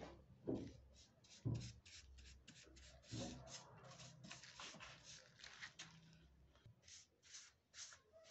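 A brush rubbing over a rain-tree (trembesi) wood surface in quick back-and-forth strokes, about four or five a second, with a short pause about six seconds in. A couple of dull knocks near the start.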